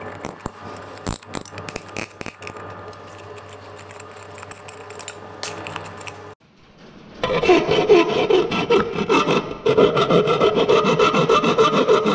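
Tin snips clicking now and then as they trim thin sheet metal. Then, from about seven seconds in, a hand file rasps steadily and loudly across the edge of a curved sheet-metal piece in quick back-and-forth strokes.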